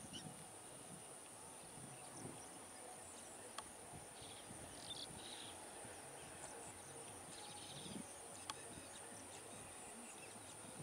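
Faint rural ambience: a steady high-pitched insect drone with a few short bird chirps about four to five seconds in and again near the middle. The distant train gives no distinct sound of its own.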